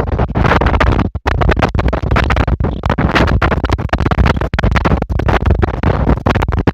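Strong wind buffeting the microphone: a loud, rough, crackling rumble that keeps cutting out for split seconds.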